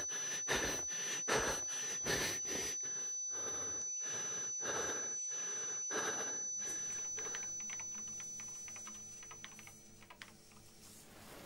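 A man panting hard and fast in fright, about two ragged breaths a second, fading out over several seconds, with a thin high ringing tone under it. After that come faint ticks over a low hum.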